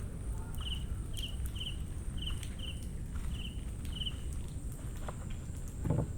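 Mangrove forest ambience: a small animal gives short, rapid chirping calls, about two a second for the first few seconds, over a steady high-pitched insect drone and a low rumble. One footstep thumps near the end.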